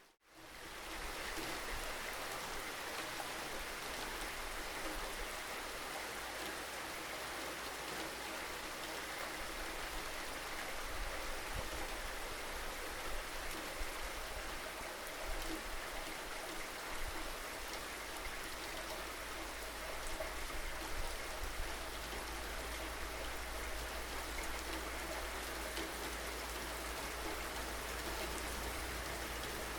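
Steady rainfall, an even hiss of drops without a break, after a momentary dropout and fade back in right at the start.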